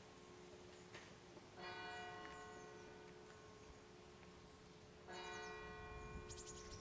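Faint, distant church bell tolling: two strokes about three and a half seconds apart, each fading slowly, with the bell's low hum carrying on between them.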